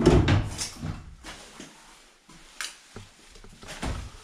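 A drawer under a bar counter being handled: a loud sliding knock at the start, then a few short sharp knocks and clicks.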